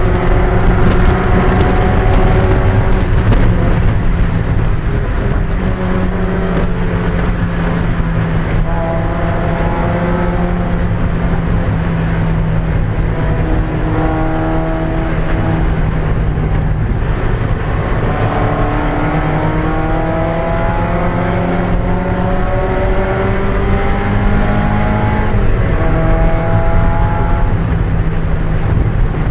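1995 Mazda Miata race car's 1.8-litre four-cylinder engine pulling hard under racing load. Its pitch climbs and drops back several times as it accelerates and shifts.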